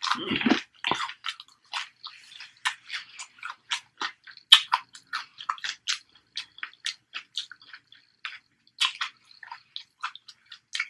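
Close-miked eating sounds: a person chewing, with irregular wet smacks and clicks of the mouth. A brief louder noise comes in the first second.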